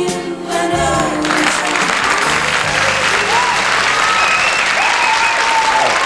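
A woman's sung soul ballad with backing vocals ends on its final held notes about a second in, followed by a studio audience applauding.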